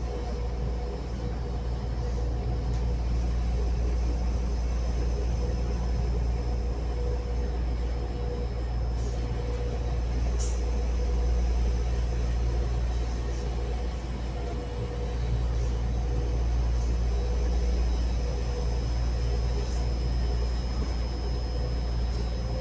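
Local electric train running, heard from on board: a steady low rumble with a wavering mid-pitched hum and a faint high whine, plus a few light clicks. This is the running noise the recorder logs as unusual on this train.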